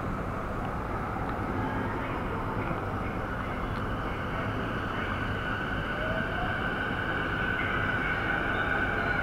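E233-series electric commuter train pulling away from the platform. The motor whine rises in pitch and grows louder from about six seconds in, over a steady low rumble.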